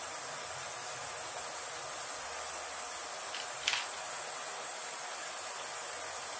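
Steady background hiss with one light click about three and a half seconds in, as small metal parts of a model-engine carburetor are handled.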